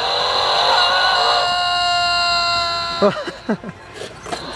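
Electronic monster-truck sound effect from a Hot Wheels Monster Jam Sound Smashers Grave Digger toy truck, set off by rolling its wheel and played through the toy's small built-in speaker. A buzzy tone holds for about three seconds, then breaks into a few short gliding sounds.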